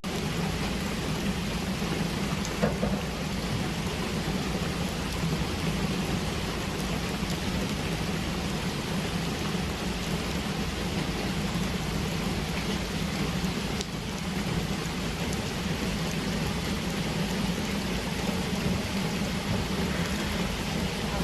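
Tour boat's motor running steadily, a constant low hum under an even hiss of wind and water.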